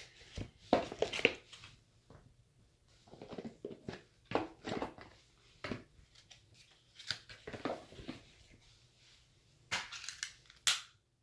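Irregular rustling, crinkling and sharp clicks of small objects being handled and moved about, with a louder cluster of rustles about ten seconds in.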